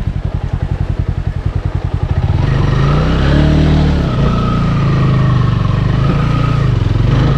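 Single-cylinder motorcycle engine pulsing at idle, then revved up about two seconds in and held at higher revs, the pitch rising and dipping briefly before settling.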